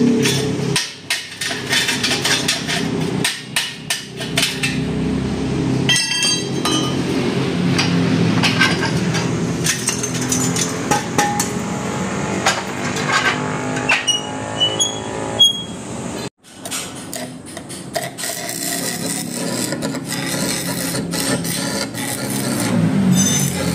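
Hand hammering and scraping on a sheet-metal motorcycle muffler pipe as it is fabricated: irregular hammer blows and clinks mixed with metal scraping. A few blows leave a short, high metallic ring about two-thirds of the way in.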